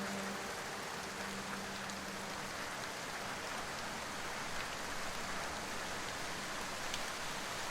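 Steady rain, an even hiss of falling drops with no breaks, as the last notes of soft background music die away in the first moment.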